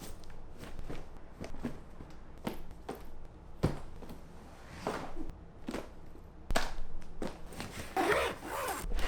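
Scattered knocks, clicks and rustling of objects being handled, as when packing bags, with a longer rustle near the end.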